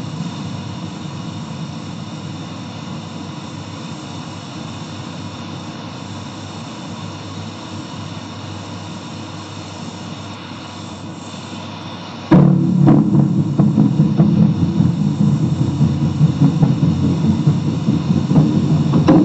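Atonal modern concert music played back slowed to a low pitch: a low sustained drone, then about twelve seconds in a sudden loud entry of dense low sound with rapid clicking strikes over it.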